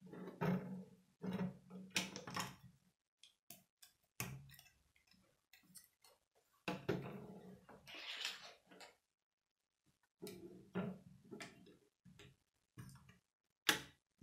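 Plastic Lego bricks being handled and pressed together, clicking and rattling in irregular bursts.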